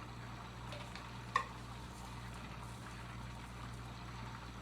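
Faint, steady hiss of pots cooking on a stove under a low hum, with one light click about a second and a half in.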